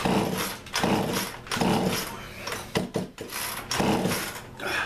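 Poulan Pro chainsaw's recoil starter rope pulled sharply about six times in quick succession, the two-stroke engine turning over on each pull without catching.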